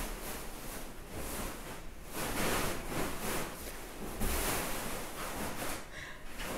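A dog shifting about in a beanbag, the bead filling rustling in a hissing sound that swells and fades.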